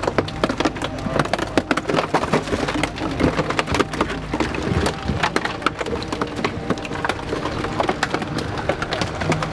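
Continuous crackling and snapping, many sharp cracks a second, as the sunken car is dragged out against a stump that rips it in half.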